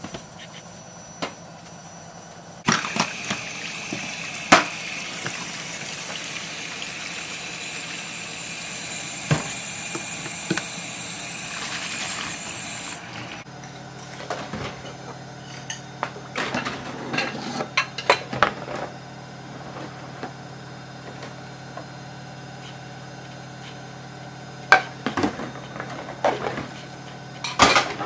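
Kitchen tap running into a stainless steel sink for about ten seconds, a steady hiss that starts and stops abruptly. After that, dishes and a pan clink and knock as they are washed by hand in soapy water.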